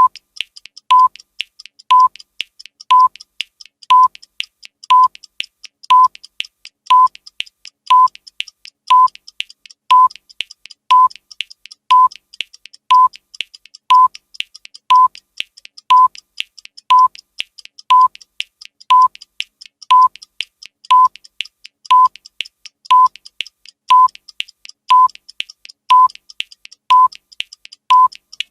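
Countdown timer's electronic beep: a short, steady, mid-pitched tone repeating once a second, with fainter sharp clicks in between.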